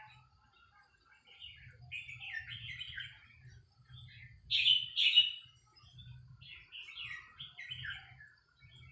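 Red-whiskered bulbul singing in short, bubbly warbled phrases, with its loudest notes about halfway through.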